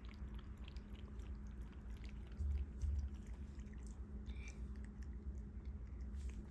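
Cat lapping water with its tongue: a run of small, quick wet clicks, with a low thud a little over two seconds in.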